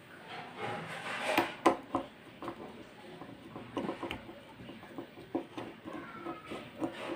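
Small irregular clicks and taps as a screwdriver works a screw on the carbon-brush holder of an Ametek vacuum motor, with light knocks of the motor's metal and plastic parts being handled.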